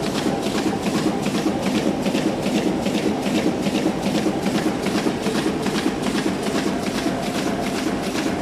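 Rotary-hob plastic T-shirt bag making machine running at production speed: a steady mechanical rumble with a fast, even clatter repeating several times a second.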